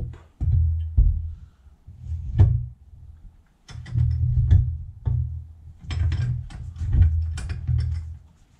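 Background music with a repeating low bass line, over scattered metal clicks and knocks from handling parts at a bench vise.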